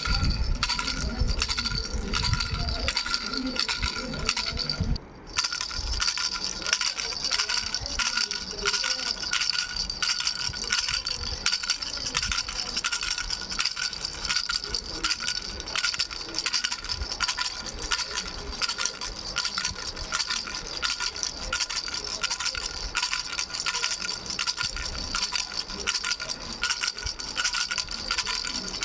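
A baby rattle with three small bells, shaken continuously in a rapid jingling with a steady bell ring, cutting out briefly about five seconds in.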